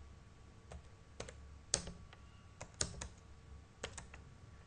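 Computer keyboard keys pressed one at a time: about eight separate keystrokes with uneven gaps between them, over a faint steady low hum.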